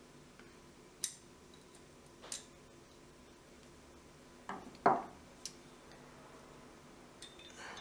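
Small metal pistol parts clicking and knocking as the spring-loaded stud and magazine release button are worked out of a Sig Sauer P226 frame: a sharp click about a second in, a fainter one, then a few knocks near the middle and light ticks.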